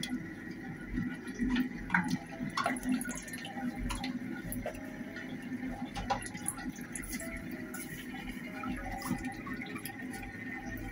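Soybean oil being poured from a plastic bottle into a non-stick frying pan, with a few faint scattered clicks.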